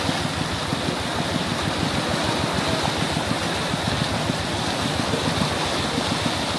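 Steady rush of fast-flowing river water, with a thin steady high tone above it.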